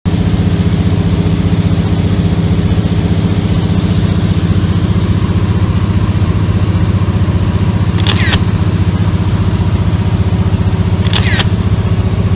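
Small single-engine propeller plane's engine and propeller droning steadily, heard from inside the cabin. Two short bursts of camera-shutter clicks come about eight and eleven seconds in.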